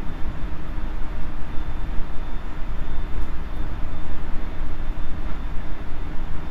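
JR Central 373 series electric multiple unit running at steady speed, heard from inside the KuMoHa 373 motor car: a continuous low rumble of wheels and running gear on the rails, with a faint steady high whine over it.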